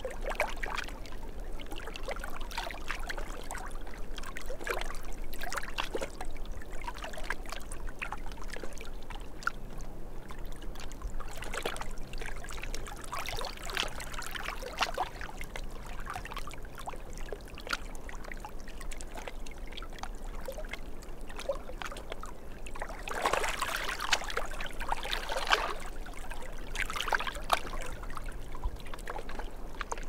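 Small waves lapping and splashing against rocks at a lake's edge, in irregular little splashes, with a louder spell about three quarters of the way through.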